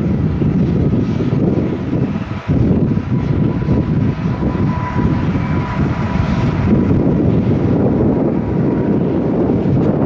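Jet engines of an ANA Boeing 777 on the runway: a loud, steady jet rumble with a faint whine over it, mixed with gusts of wind buffeting the microphone. The rumble dips briefly about two and a half seconds in.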